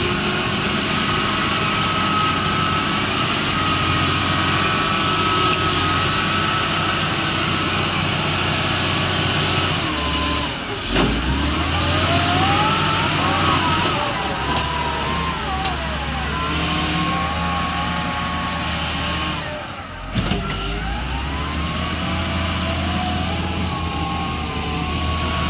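Excavator engine running under load, with a whine that rises and falls in pitch as the machine is worked. Sharp knocks come about 11 seconds in and again about 20 seconds in.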